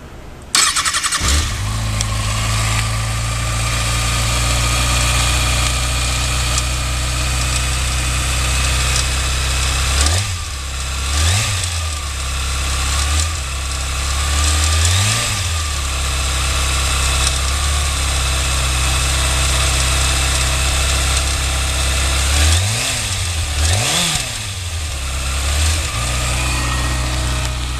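Kawasaki ZX6R inline-four engine starting up and idling, with several quick blips of the throttle in the middle and near the end. A weird intermittent rattle, like a marble rolling around, comes and goes a couple of times; its cause is unknown.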